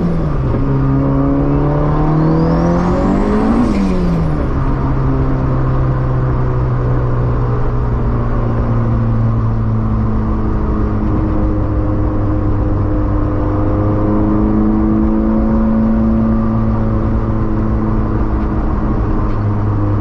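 Honda Civic EF hatchback's four-cylinder engine heard from inside the cabin: it revs up through a gear, drops in pitch at a shift about four seconds in, then cruises steadily with the pitch slowly rising and easing. A faint high whistle climbs with the revs during the acceleration. The hatch and cabin are lined with Second Skin sound deadening, and the owner says the 4,000 rpm drone is gone.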